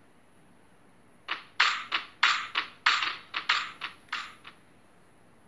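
Computer keyboard keys tapped about ten times in an uneven run, roughly three strokes a second, starting about a second in and stopping shortly before the end.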